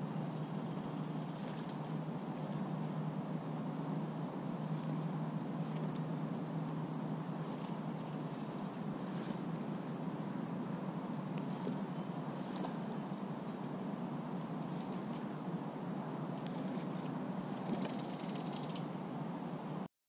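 Steady open-water ambience from a kayak on a lake: a low, even rush of wind and water, with a faint steady high whine and scattered faint high ticks. The sound cuts off suddenly near the end.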